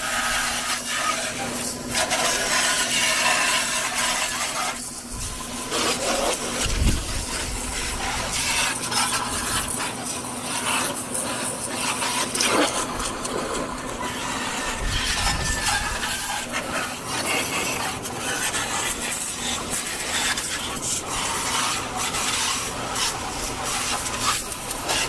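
Coin-operated car wash pressure washer spraying a high-pressure jet of water from its nozzle onto a scooter: a steady hiss and spatter of spray, with a steady low hum beneath.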